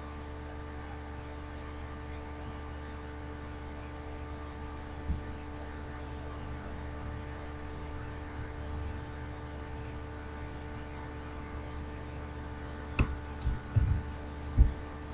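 Steady electrical mains hum. Near the end come a few brief low thumps.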